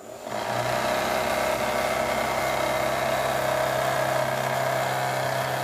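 Small brushed DC motor spinning a homemade yellow plastic propeller, picking up speed in the first half-second and then running with a steady whir.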